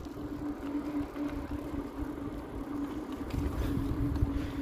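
Touring bicycle rolling along a road: a steady tyre hum over low wind rumble on the microphone.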